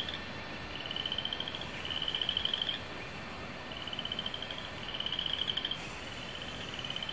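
Frogs trilling: pulsed trills about a second long, each rising slightly in pitch, repeating with short gaps.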